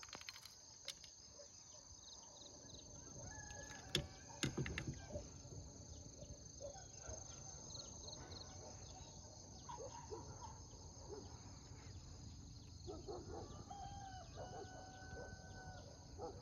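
Faint rooster crowing, several calls about a second or more long, over a steady high insect drone, with a couple of sharp clicks about four seconds in.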